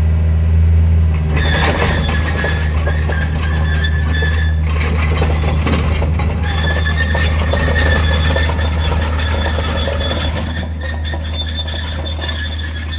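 Takeuchi TB150C midi excavator running with a steady engine hum. About a second in, a loud high-pitched squeal from the machine starts. It eases off for a couple of seconds in the middle, then returns and fades slightly near the end.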